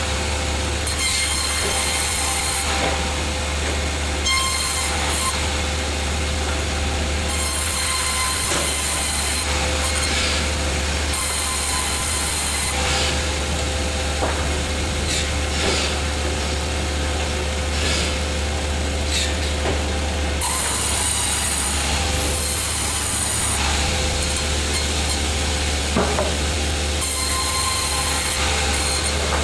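Sawmill saw running steadily and cutting through wood, with a constant low motor hum and a few brief knocks.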